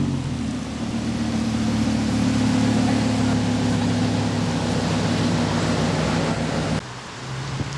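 Lamborghini supercar engine running at low, steady revs as the car moves on a wet road, with tyre and spray hiss over it. The sound cuts off suddenly near the end, leaving a quieter low hum.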